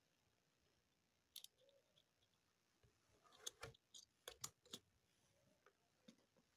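Faint sharp clicks from small plastic mount parts being handled and fitted on a motorcycle helmet: one about a second in, then a quick cluster of five or six around the middle, otherwise near silence.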